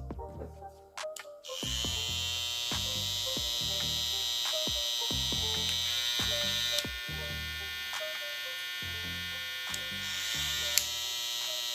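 Cordless hair trimmer switched on about a second and a half in, running with a steady high-pitched whine; its tone changes slightly and it drops a little in level past the halfway point. Background music with a steady beat plays underneath.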